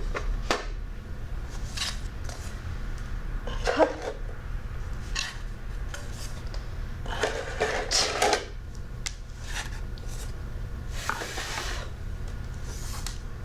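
Hands handling a box and small teaching objects and cards: scattered knocks, scrapes and rustles as things are put away, the loudest a sharp knock about four seconds in.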